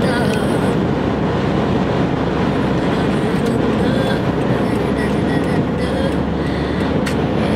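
Steady rush of tyre and wind noise heard from inside a car cruising at expressway speed.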